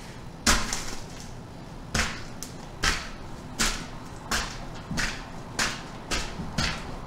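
Goldfish crackers crunching under a flip-flop sole as a foot steps down on them again and again: about nine crisp crunches, the first and loudest about half a second in.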